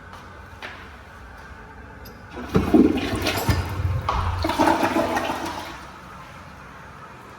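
A public-restroom flush fixture, made by American Standard, flushing. A faint click comes about half a second in. A loud rush of water follows about two and a half seconds in and dies away about three seconds later.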